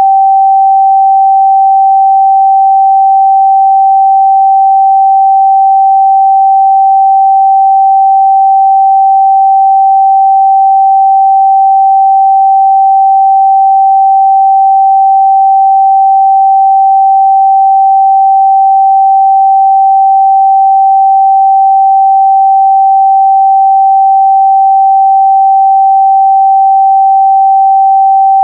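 A steady, loud 777 Hz sine-wave test tone, one pure pitch held without change.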